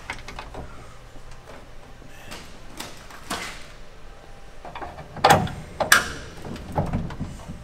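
Metal clicks and knocks from the DiamondBack HD bed cover's hinged panel and prop rod being worked by hand. A few faint taps come first, then two sharper clicks about five and six seconds in.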